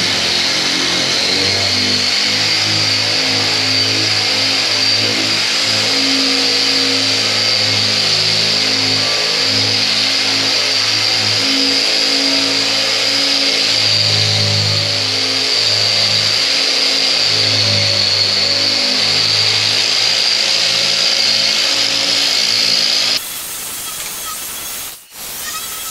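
Handheld electric drum sander running with its abrasive drum against a steel plate, stripping surface rust: a loud, steady high-pitched whine over a lower motor hum. About 23 seconds in, the sound drops abruptly to a quieter, rougher sanding.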